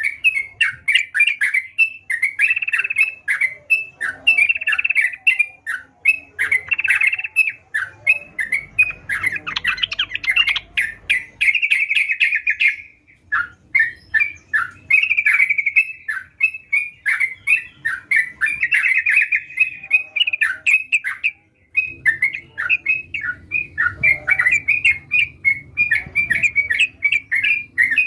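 Yellow-vented bulbul (trucukan) singing actively in rapid, bubbly chattering phrases, almost without a break, pausing briefly about 13 seconds and 21 seconds in. A faint quick high ticking runs underneath.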